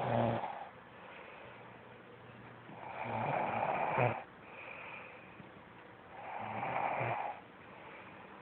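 A woman snoring in her sleep: the end of one snore, then two more, each about a second and a half long and roughly three and a half seconds apart, with quieter breathing between.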